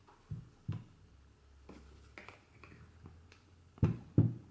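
Handling noise from a Super 8 film camera being moved on a cloth-covered surface: a few soft thumps and small clicks, the two loudest thumps coming close together near the end.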